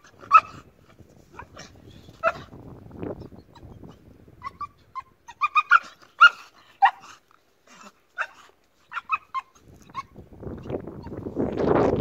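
Pit bull letting out a string of short, high-pitched yips and barks with gaps between them. Near the end, wind noise on the microphone rises.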